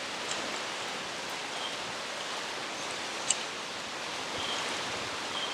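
Steady rainfall on rainforest foliage, an even hiss. A few short high chirps come through it, and there is a single sharp tick about three seconds in.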